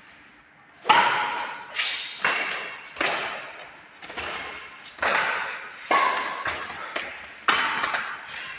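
Badminton rackets striking a shuttlecock in a rally: sharp hits roughly once a second, each with an echoing tail.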